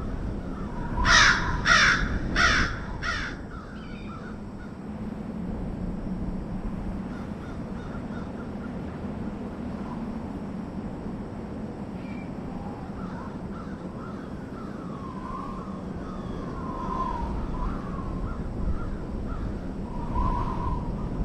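A bird gives four harsh, crow-like caws in quick succession about a second in. Later come fainter, softer chirping calls, all over a steady low background rumble.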